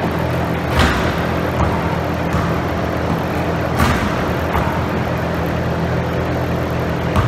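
Basketball dunks on a portable hoop: the ball and hands slam the rim sharply twice, about a second in and just before four seconds, with another sharp thud near the end, over a steady low hum.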